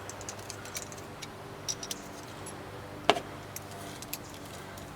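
Scattered small metallic clicks and taps of a wrench loosening the bolts on a battery terminal clamp, one sharper click about three seconds in, over a faint steady hum.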